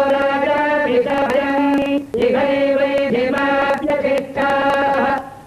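Chanting on long held notes at a steady pitch, with short breaks about two seconds in and near the end.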